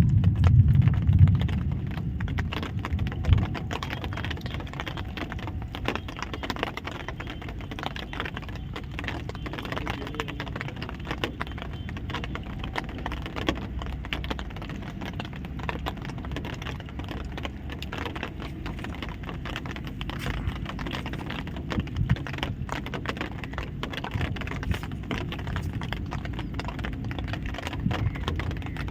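Light rain pattering as a dense run of fine, irregular ticks, over a steady low rumble of wind on the microphone.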